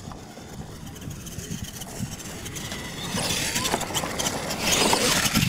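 Radio-controlled monster truck driving fast on dirt: motor whine and tyres churning loose soil, with a short rising whine as it speeds up. It gets much louder about three seconds in as it comes close, with a few knocks near the end.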